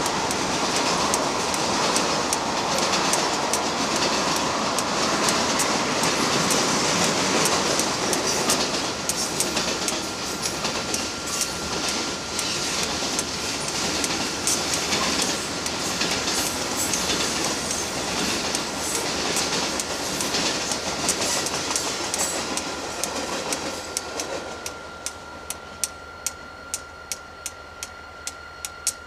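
Canadian Pacific freight train's tank cars and covered hoppers rolling past, wheels clicking over the rail joints. About 24 s in the last cars go by and the sound drops away, leaving a faint steady tone and regular ticking nearly twice a second.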